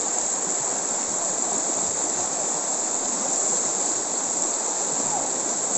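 Shallow, rocky river rushing steadily over stones in white-water riffles.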